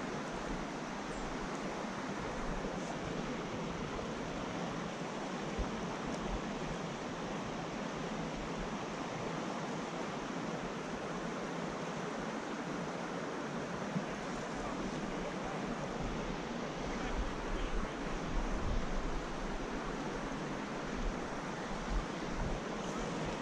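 Steady rush of a small creek's water flowing over riffles and rocks, with a few low bumps on the microphone in the second half.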